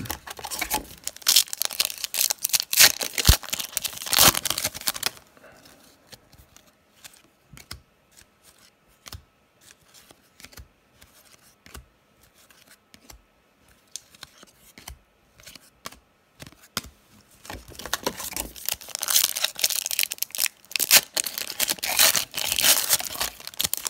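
Baseball card pack wrappers crinkling and tearing open, in two spells of busy rustling of about five seconds each. Between them, only light clicks and rustles of cards being handled.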